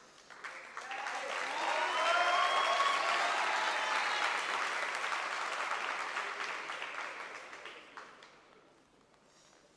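Arena crowd applauding and cheering, with a few shouts. It swells about a second in and dies away by about eight seconds.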